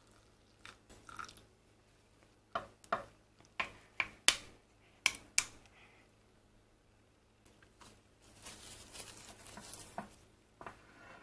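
A metal spoon clinks sharply against a glass measuring cup about eight times while stirring rye flour and water into a thick poolish. Near the end, plastic cling film crinkles as it is stretched over the cup.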